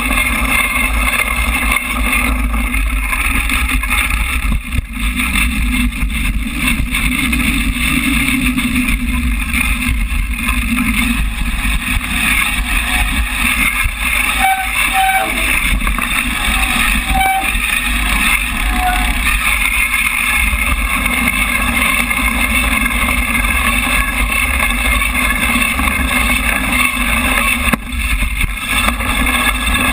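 A motor vehicle engine running steadily while being ridden over rough ground, with wind buffeting the microphone.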